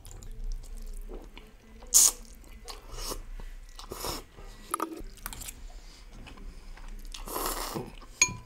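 Noodles from a bowl of chicken thukpa noodle soup being slurped and chewed, with a short sharp slurp about two seconds in and a longer slurp near the end.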